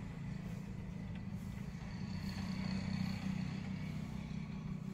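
A steady, low engine drone.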